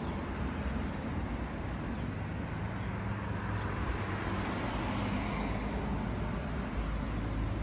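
Steady outdoor background noise with a low rumble of distant road traffic.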